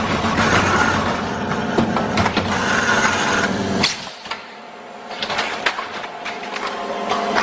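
Granola packing machine running: a steady mechanical hum with scattered clicks, dropping suddenly quieter about halfway through, then clicking and building back up.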